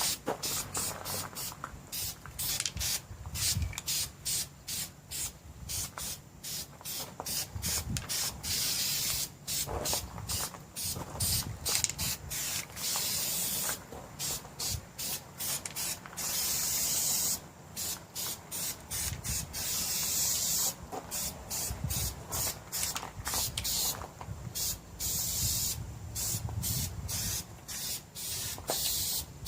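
Aerosol spray paint can spraying in many short bursts, with a few longer passes. The can had been clogging and now sprays again.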